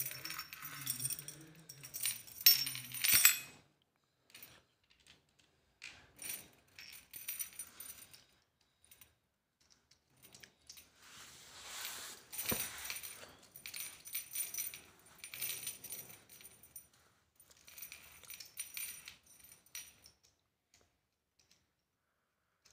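Metal chandelier hanging chain and its fittings clinking and jingling as they are handled, in irregular bursts with a bright ringing, loudest in the first few seconds.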